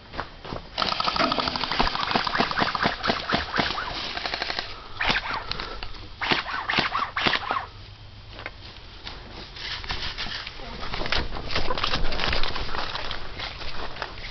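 Airsoft guns firing rapid bursts of clicking shots in several stretches, with short pauses between them.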